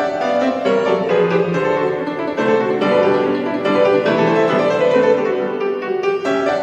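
Grand piano played solo, a continuous flowing passage of classical music with many notes in quick succession.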